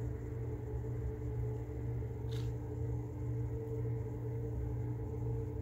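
A steady low hum with a couple of fainter steady tones above it, with one brief, faint higher sound about two seconds in.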